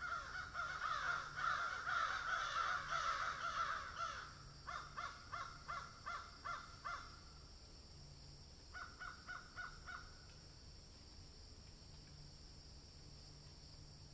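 Birds calling, crow-like: a dense stretch of calls for about four seconds, then two runs of short repeated calls at about three a second, dying away a few seconds before the end.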